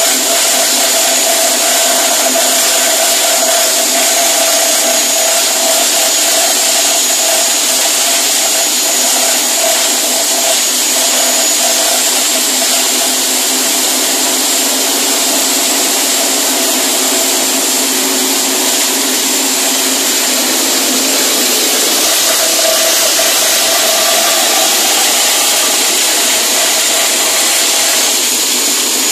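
Multi-purpose forage chopper driven by a small petrol engine, running steadily at speed with a continuous whir and a high whine while a long stalk is fed into its side chute and shredded.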